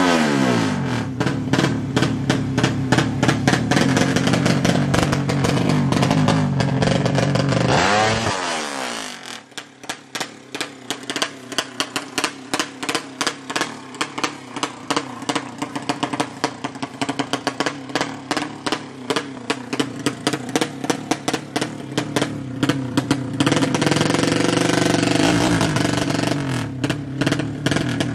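Drag bike's 200cc horizontal-cylinder ('sleep') racing engine revving hard: the revs fall away near the start and sweep up and down again about eight seconds in, then the engine runs on with quick, repeated throttle blips.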